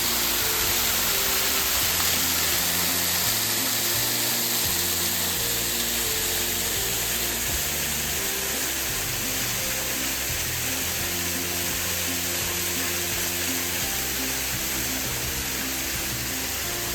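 Background music with low notes changing step by step, over a steady rushing hiss of falling water from a waterfall.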